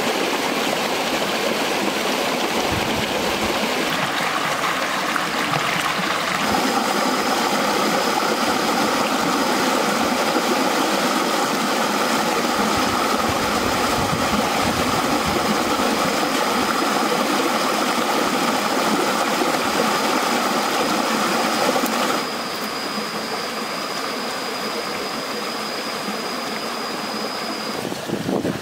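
Shallow rocky stream running, a steady rush of flowing water over stones. A thin, steady high tone sounds over it from several seconds in until just before the end.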